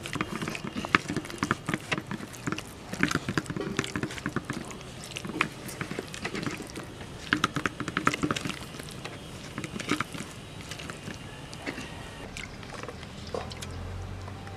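A bare hand squeezing and mashing a wet, oily paste of leafy greens on a clay plate: irregular squelches and small wet clicks.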